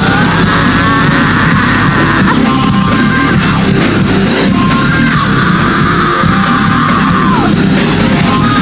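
Loud live heavy rock music in an instrumental passage, with electric guitar holding and bending notes over a dense, steady band sound.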